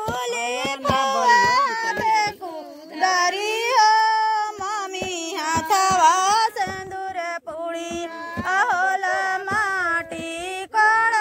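Women singing a Bhojpuri matkor folk song, the traditional song of the soil-digging wedding ritual, in high voices with long held notes.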